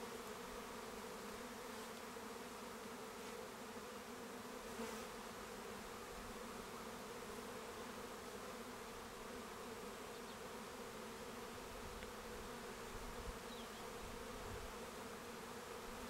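Honey bees buzzing around an opened hive as its frames are lifted out, a steady low drone of many wingbeats.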